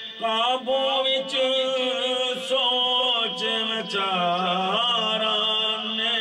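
A man singing a Punjabi naat into a microphone, drawing out long, ornamented notes on a wavering melody without clear words. A steady low drone is held underneath.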